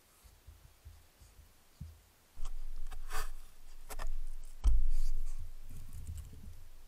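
Eurasian otter nosing and bumping against the trail camera, with rubbing, scraping and knocking noises on the housing and a few sharp clicks. The loudest knock comes about two-thirds of the way through, followed by more rubbing.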